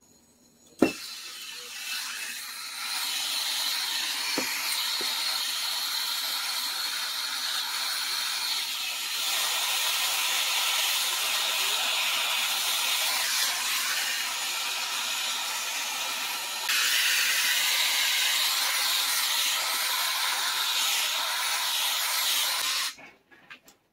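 Hand-held gas torch lighting with a sharp click about a second in, then its flame hissing steadily while it heats a copper pipe fitting for soldering. The hiss grows louder twice and cuts off about a second before the end.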